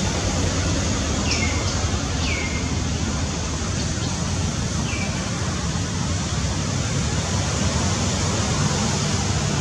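Steady, loud rushing noise, with a few short high chirps that fall in pitch, clustered between about one and two and a half seconds in and once more about five seconds in.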